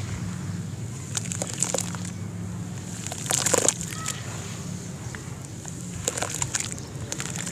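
Hands squishing and swishing through a basin of wet sand-cement slurry, the water sloshing in irregular wet squelches, loudest about three and a half seconds in. A steady low hum sits underneath.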